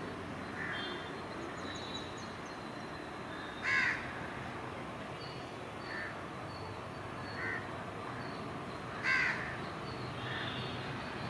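A crow cawing: two loud caws about four and nine seconds in, with fainter calls between, over a steady background hiss.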